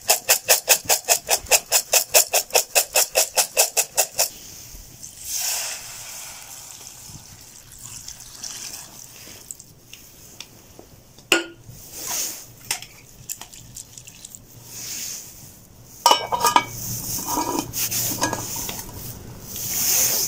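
Aluminium camping pot of pasta and onions shaken on a small stove with a pot gripper: a fast, even rattle for about four seconds. Then scattered clinks and scrapes of metal cookware, with a sharp click about eleven seconds in and a busier clatter near the end as the lid goes on.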